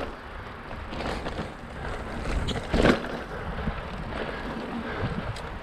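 Specialized Rockhopper mountain bike rolling along a dirt trail: a steady rumble of tyres on the ground with scattered clicks and rattles, and one loud knock about three seconds in.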